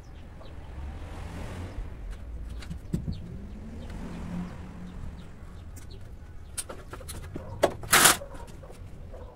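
Scattered small clicks and knocks of hand work at a truck cab's window opening over a low steady rumble, then a short loud clatter of metal knocks about eight seconds in as the aluminium stepladder is grabbed and moved.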